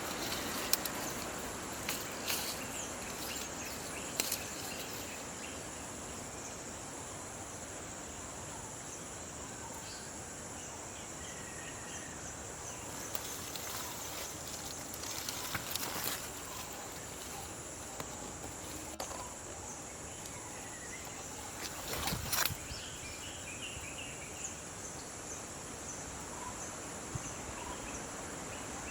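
Steady, high-pitched chorus of insects such as crickets, with a few faint bird chirps. Sharp crackles break in several times, the loudest about 22 seconds in.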